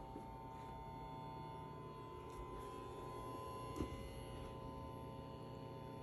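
Hisense 120L10E laser TV giving off a steady high-pitched buzz made of several pitches at once, over a low hum. A soft knock comes nearly four seconds in.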